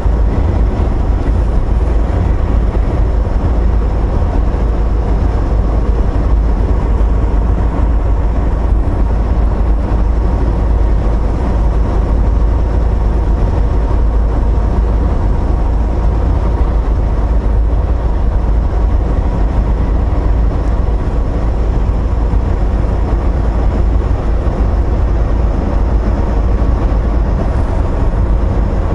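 Inside a semi-truck cab at highway speed: a steady, loud low rumble of the diesel engine and tyre and road noise, even throughout.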